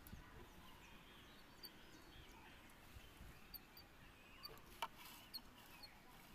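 Faint birds chirping against a near-quiet background. About two-thirds of the way in comes one sharp snip of small pruning scissors cutting a bonsai twig.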